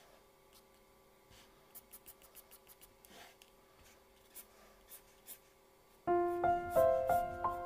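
Faint scratching strokes and small taps of a mechanical pencil on drawing paper, with a faint steady hum behind. About six seconds in, louder piano music comes in.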